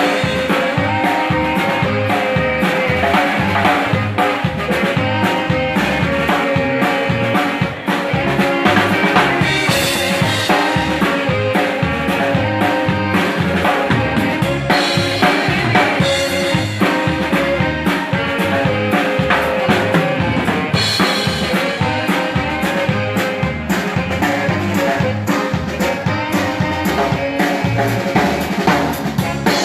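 Live Czech-style dance band playing a dance tune with a drum kit keeping a steady beat under a moving bass line, with a brief dip in the sound just before eight seconds in.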